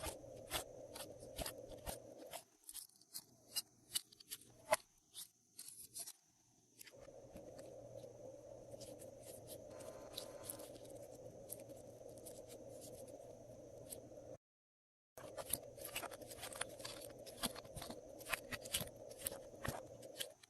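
Glossy slime being kneaded and mixed by hand: irregular sticky clicks and small pops over a faint steady hiss, with a brief break about two-thirds of the way through.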